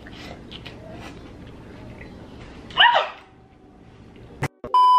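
A short, high-pitched scream just under three seconds in, from a person startled by a large ant crawling on them. Near the end, a loud steady electronic bleep tone starts.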